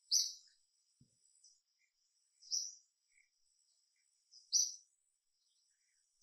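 A bird calling three times, about two seconds apart, each a short, sharp, high-pitched call.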